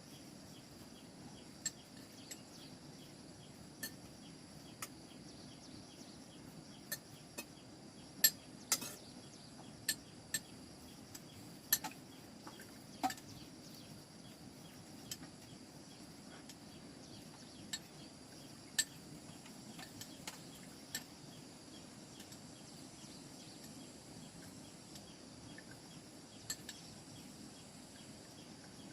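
Irregular sharp clinks of dishes and utensils, about twenty scattered over the first twenty seconds and growing sparse after, over a steady high drone of insects.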